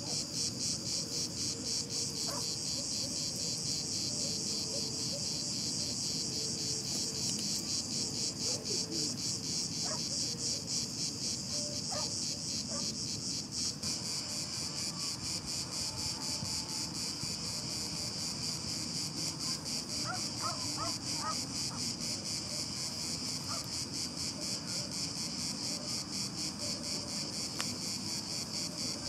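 A dense chorus of insects: a high buzz that pulses rapidly and keeps going without a break.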